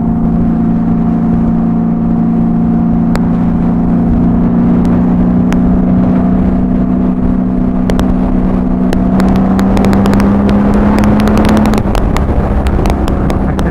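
Honda Valkyrie's flat-six engine through Cobra six-into-six exhaust pipes under way, its note slowly rising in pitch as the bike pulls, then dropping suddenly near the end. Wind rumble on the helmet microphone underneath, with scattered crackles in the second half.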